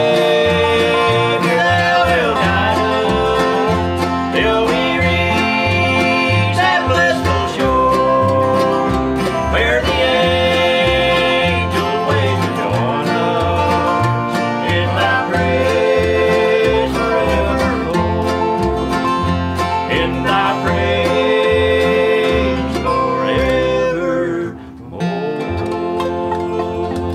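Bluegrass band playing: acoustic guitar, mandolin, resonator guitar played lap-style and upright bass keeping a steady beat. Near the end the playing drops out for a moment, then comes back a little quieter.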